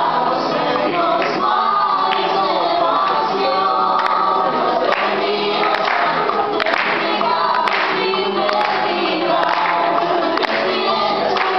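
A young woman and a young man singing a Spanish-language duet live into microphones over a recorded backing track with a steady percussive beat, amplified through PA speakers.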